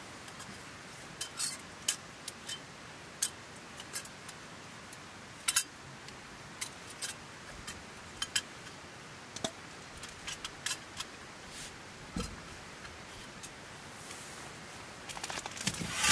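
Small cookware and utensils being handled: a scattering of sharp clicks and light clatters at irregular intervals, then a quick cluster of clinks near the end, one ringing briefly like metal or glass.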